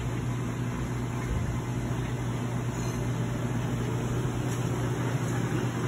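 Steady low machine hum with a faint even hiss, as of equipment running continuously.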